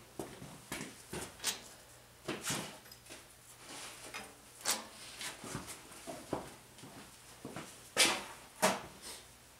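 Metal hand tools and bolts clinking and knocking as the bolts are taken out of a Ford 8N tractor's hydraulic lift top cover: irregular sharp clinks, the loudest about eight seconds in.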